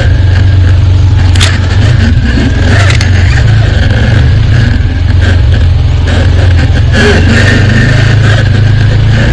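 ATV engine running, a loud, steady, deep drone, with a couple of brief knocks about one and a half and three seconds in.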